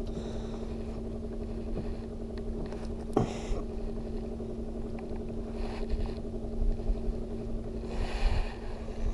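A boat's motor humming steadily with a low rumble, with a single sharp knock about three seconds in and a few brief hissy swells of noise later on.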